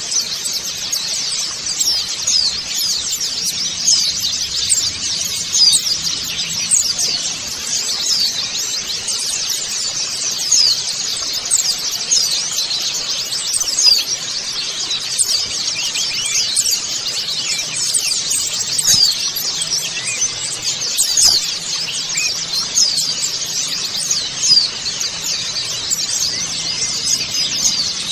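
A group of white-eyes (pleci) chattering and singing together, with many overlapping thin, high chirps and quick twittering phrases and no break.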